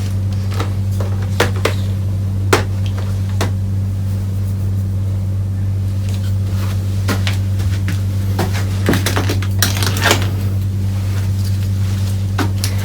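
Scattered light clicks and taps of small hard parts being handled on a workbench, a cluster of them about nine to ten seconds in, over a steady low hum.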